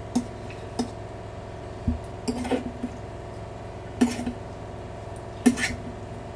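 Steel spoon clinking against a serving bowl and steel plate while scooping and serving fish curry. About half a dozen sharp clinks, with brief scraping between them.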